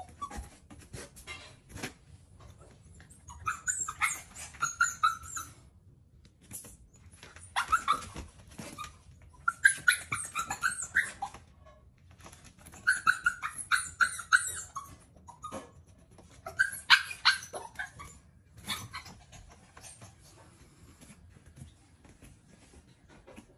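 A small Shih Tzu–poodle puppy whining and yipping in repeated high-pitched bursts a second or two long, begging for food at the table.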